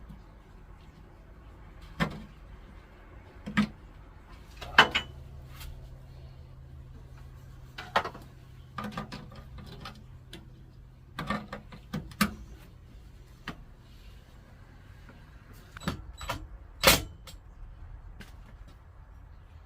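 Scattered knocks, clicks and clunks of metal hardware and tools being handled while brackets and a fridge slide are fitted, the loudest about 5 s in and near the end. A low steady hum runs through the middle for about eight seconds.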